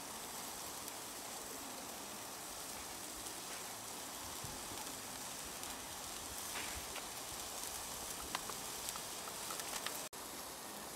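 Marinated steaks and sausages sizzling on the grate of a charcoal grill: a steady sizzle with scattered small pops and crackles.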